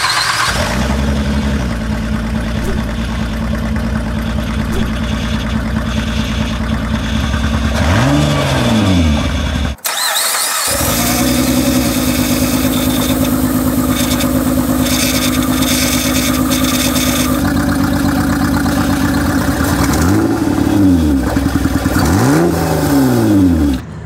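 2006 Honda Pilot's 3.5-litre V6 running loud and rough with a bad misfire, blowing through a very bad exhaust leak at the downpipe. It is revved up and back down about eight seconds in and twice more near the end, with a brief gap about ten seconds in.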